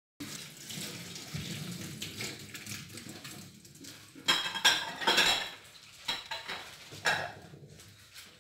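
Dishes and cutlery clattering, with a cluster of louder clinks about four to five seconds in and another near seven seconds, then fading.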